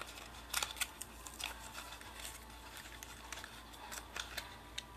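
Hot Wheels blister pack torn open by hand: the cardboard backing ripping and the plastic bubble crackling as the die-cast car is worked out. Irregular short crackles and snaps, a cluster about half a second in and another around four seconds.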